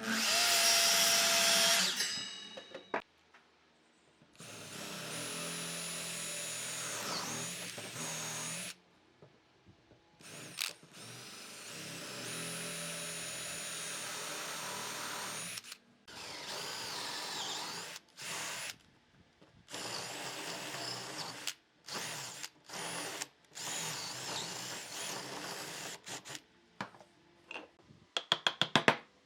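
Power drill running in repeated bursts of a few seconds each, its whine dipping in pitch as it works. The first burst, about two seconds long, is the loudest, and a quick run of clicks comes near the end.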